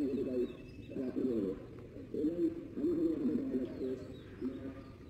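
Doves cooing over and over, low soft curved calls following one another, with a few faint high chirps of small birds.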